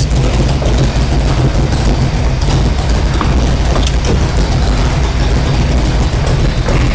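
1979 Ford Fairmont's engine running at a steady idle with a low, even drone while the clutch is being tested.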